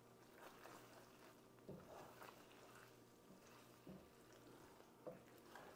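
Very faint stirring of thick, creamy tortellini in a skillet with a wooden spatula: a few soft scrapes and squishes over a low steady hum.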